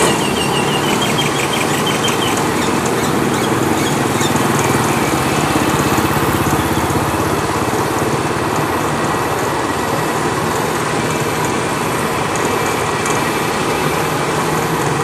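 Kubota DC-93 crawler combine harvester's diesel engine running steadily as the machine travels slowly on its tracks, mixed with small motorbike engines passing close by. About a second in there is a brief rapid high-pitched chirping.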